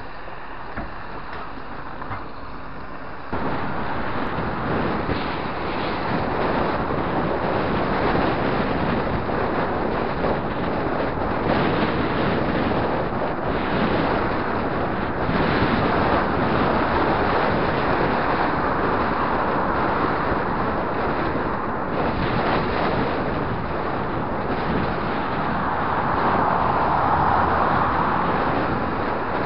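Wind rushing over a camera microphone during a road-bike ride, over road traffic noise. It is quieter at first, then jumps abruptly louder about three seconds in.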